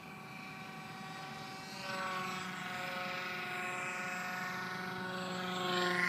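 Foam-board radio-controlled model jet flying past: a steady buzzing whine from its motor and propeller, growing louder about two seconds in and loudest near the end, where the pitch dips slightly as it passes close.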